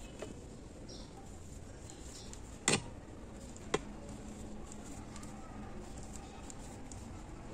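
Quiet background with two sharp clicks about a second apart near the middle, the first the louder, and a few faint short high sounds.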